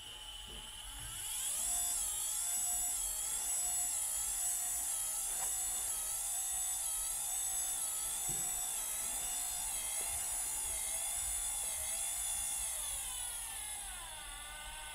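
Car windscreen wiper motor driving an electric bench vise, its jaws closing: a high electric whine that rises over the first two seconds, holds with a slight waver, and falls away near the end.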